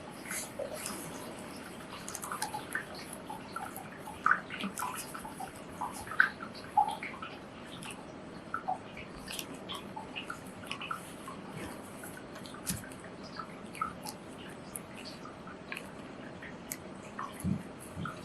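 Scissors cutting a printed etching on paper: irregular small snips and clicks with light paper handling.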